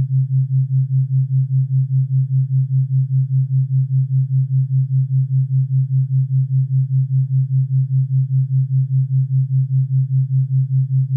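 Electronically generated low pure tone, pulsing evenly about four times a second: a theta-rate beat tone meant for brainwave entrainment.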